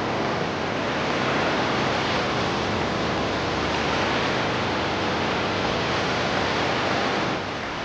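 Steady rushing noise of ocean water, an even sea ambience with no distinct events, easing slightly near the end.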